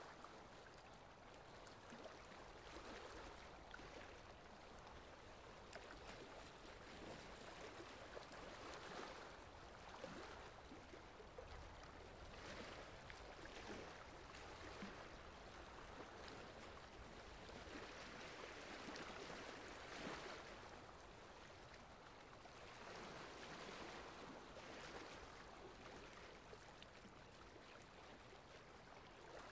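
Faint, steady rain: an even hiss that swells and eases gently every few seconds.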